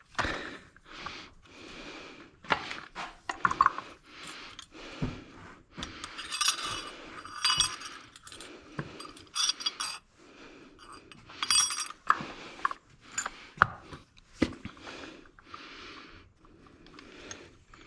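Metal clutch plates and parts of a 4L80E transmission drum clinking and knocking as the clutch pack is taken apart by hand: irregular clinks, a few of them ringing brightly.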